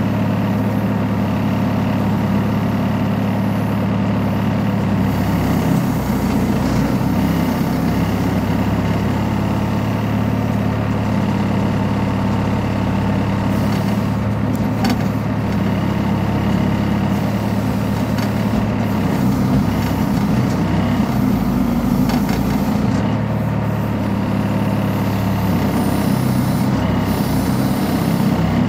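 Backhoe loader's diesel engine running steadily while its arm lifts a slung log into a tipper truck, the engine note rising and falling a little as the hydraulics work.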